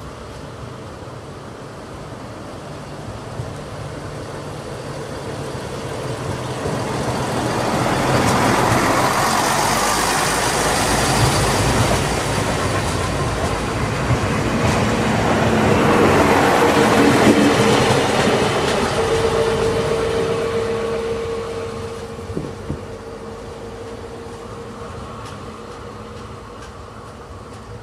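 DB class 643 Talent diesel multiple unit passing close by on a branch line. Its underfloor diesel engines and wheels grow loud as it approaches, peak twice as it passes, then fade as it pulls away, with a steady whine in the second half.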